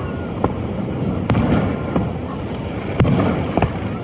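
Fireworks exploding: four sharp bangs, the loudest about a second and a quarter in and three seconds in, over a steady background of noise.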